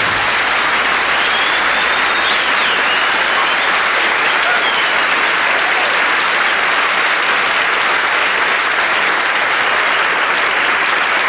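Audience applauding steadily and loudly as the band's last notes die away at the start, with a few whistles about two seconds in.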